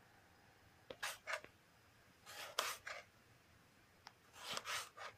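Kitchen knife slicing through a peeled bottle gourd onto a cutting board: three cuts, about a second and a half apart, each a quick rasping stroke or two.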